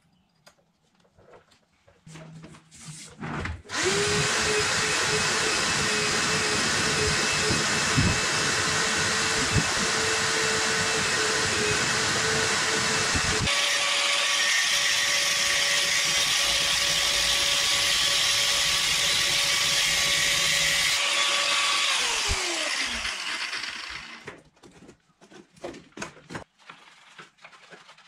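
Electric angle grinder with a cutting disc cutting through a motorcycle drive chain: a few handling knocks, then the motor runs with a loud steady whine and gritty cutting noise. Its pitch steps a little higher about halfway through, and near the end it spins down with a falling whine.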